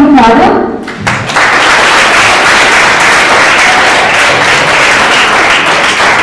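An audience, mostly children, applauding steadily for about five seconds after the last notes of a song fade in the first half second.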